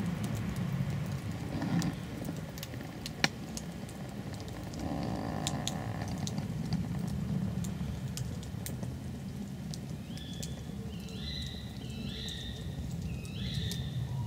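Rain falling on woodland foliage: a steady patter with scattered sharp drop ticks, one louder tick about three seconds in. Near the end a bird gives a few short, rising calls.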